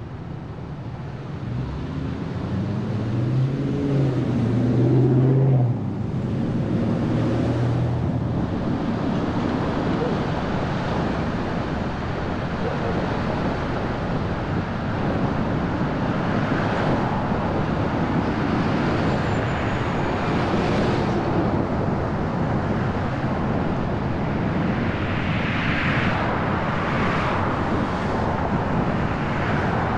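Traffic and road noise from a car driving on city streets: a steady rush of tyres and engines with vehicles passing. In the first few seconds indistinct voices and a low hum rise in level, and the hum cuts off abruptly about six seconds in.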